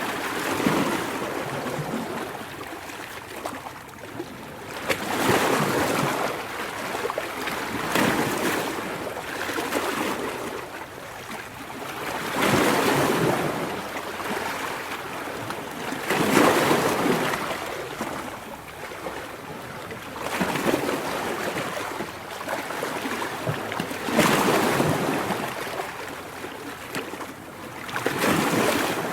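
Ocean waves breaking and washing in, one surge after another about every four seconds, with a steady hiss of water between them.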